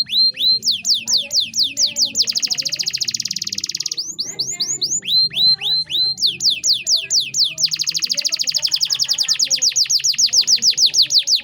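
Male canary singing an unbroken rolling song. Runs of drooping whistled notes, a few a second, each speed up into a long, very fast trill; the pattern comes twice.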